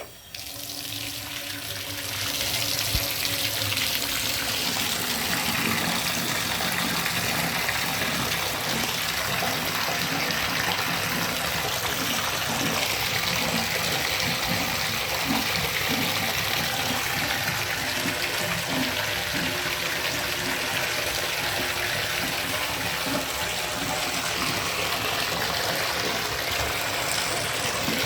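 Shower turned on, water running hard and steadily into the tub; it builds up over the first couple of seconds, then holds steady.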